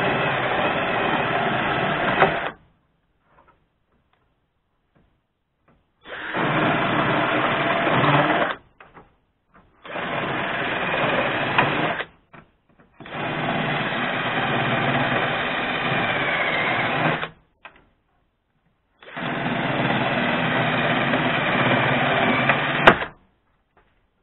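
Cordless drill boring holes in the rusted sheet-steel sill of a VAZ 2114, running in five bursts of two to four seconds with short silent pauses between, the last ending in a sharp click.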